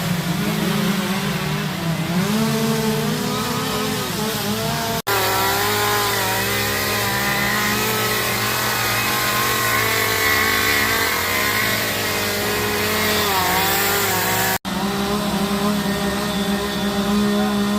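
Two-stroke chainsaws running and cutting wood, their engine pitch rising and falling as the throttle is worked. The sound breaks off for an instant twice, about five seconds in and again near the end.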